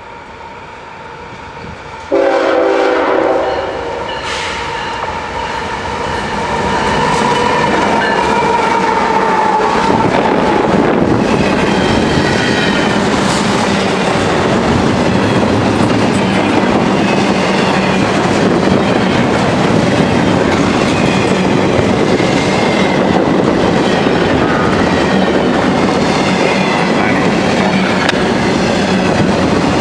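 A CSX intermodal freight train's diesel locomotive sounds its horn suddenly about two seconds in as it nears, the horn's pitch falling as the locomotive goes by. Then the long string of double-stack container cars rumbles and clacks steadily past on the rails.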